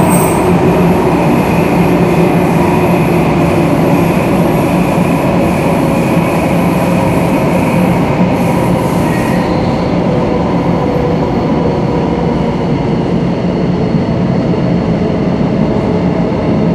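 Singapore MRT train running through an underground tunnel, heard from inside the carriage: a loud, steady rumble of wheels on rail with the hum of the traction motors. A thin high whine sounds through the first half and fades about halfway through.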